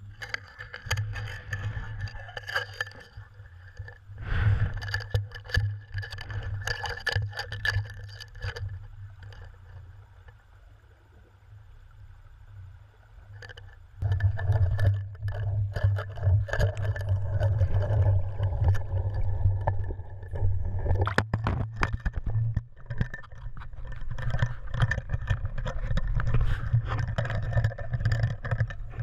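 Muffled water noise and knocking heard through a GoPro Hero 2's waterproof housing mounted on a cod jigger underwater, with a low hum underneath. It quietens for a few seconds, then gets much louder and busier from about halfway as the jigger is hauled up to the boat.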